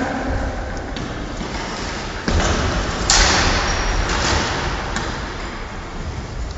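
Floorball play in a sports hall: scattered knocks and thumps from sticks, the plastic ball and footsteps, with one sharp crack about three seconds in, over a steady low rumble.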